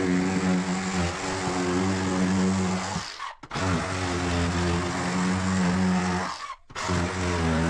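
An electric power tool's motor running steadily with a low hum and a hiss, in three stretches that each stop abruptly.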